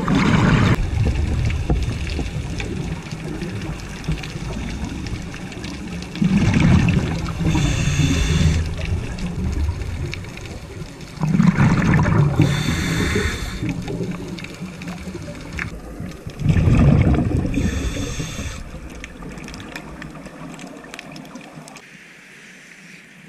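Scuba regulator exhaust bubbling underwater, a diver breathing out in four long gurgling rushes about five seconds apart, with quieter hissing between the breaths.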